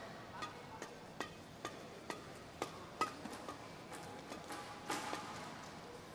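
Badminton rackets striking shuttlecocks in a warm-up: a string of sharp, irregular clicks, about two a second, each with a short ring of hall echo, over a steady hall murmur.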